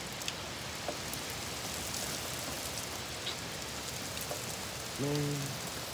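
Steady thunderstorm rain falling, an even hiss with a few sharp ticks of drops landing close by.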